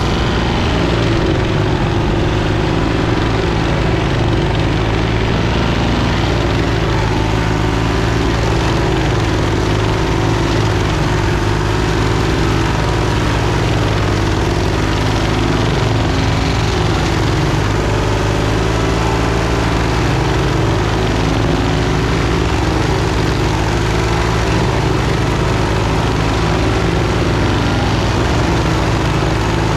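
Green Climber LV600 tracked slope mower's Kohler engine running steadily under load as its forestry mulching head works into a tree stump and brush.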